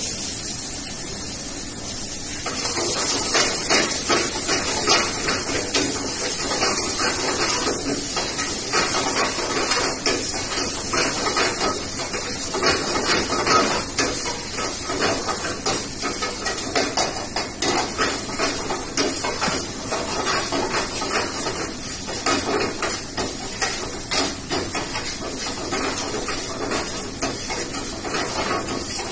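Metal ladle scraping and clattering rapidly against a frying pan on a gas range, over a steady hiss of frying. The stirring picks up about two seconds in and keeps going.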